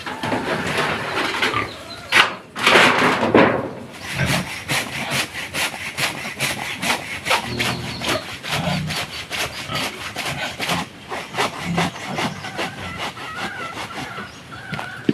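A hand tool rasping on wood in quick, repeated strokes, like sawing or scraping.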